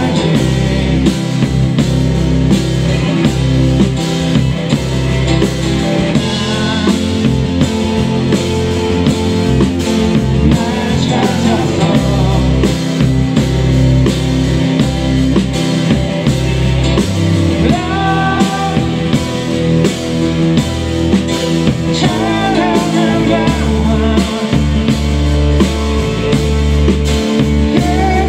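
Rock band playing a song, with drum kit, guitar and a singer's voice coming in at times over the band.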